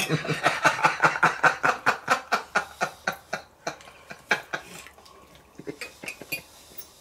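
Cutlery on plates while eating: quick, even scraping and clinking strokes of knife and fork on a plate, about six a second for the first three seconds or so, thinning to a few scattered clinks.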